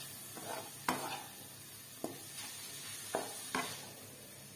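Spatula stirring shredded chicken frying in a non-stick wok over a faint sizzle, with about four sharp scrapes and taps of the spatula against the pan.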